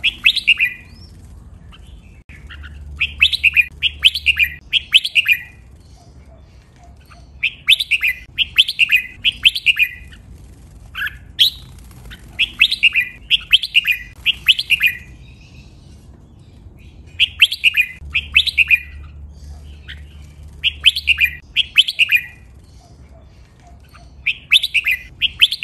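Red-whiskered bulbul singing its training song: short phrases of quick, bright whistled notes, repeated in bursts every few seconds.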